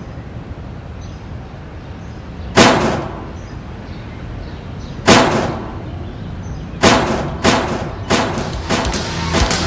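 Sparse, sharp percussion hits with a short ringing decay over a low steady hum: two single hits about two and a half seconds apart, then from about two-thirds of the way in a quickening run of hits building back toward the full song.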